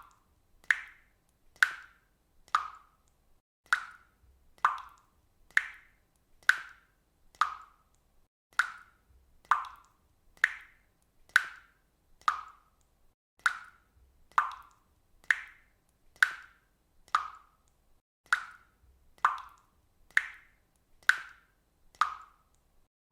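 Water dripping steadily into water, one drop about every second, each landing with a short ringing plop.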